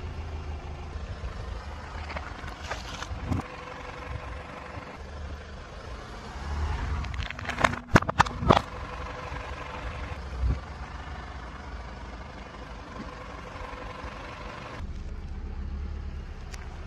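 Car rumbling at low speed as its tyre rolls over objects, with a quick series of loud sharp cracks and pops about eight seconds in as something bursts under the tyre, and a single thump a couple of seconds later.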